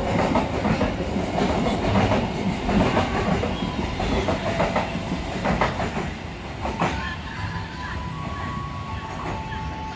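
Freight train of flat wagons rolling past, wheels clacking over the rail joints in a steady run of clicks. The clatter fades in the last few seconds.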